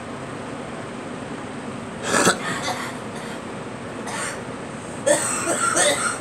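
A girl coughing: a sharp cough about two seconds in, a short one about four seconds in, and a broken run of coughs about five seconds in, over a steady background hiss.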